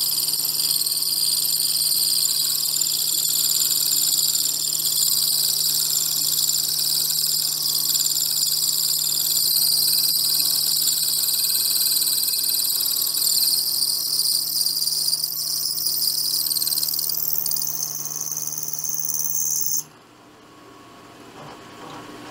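Milling machine end mill cutting a metal workpiece: a steady high-pitched whine over a low motor hum. About twenty seconds in the high whine and the hum cut off suddenly, leaving a much quieter hum.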